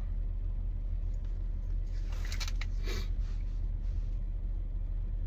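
Steady low rumble of a car's running engine heard inside the cabin, with a few faint rustles of trading cards being handled two to three seconds in.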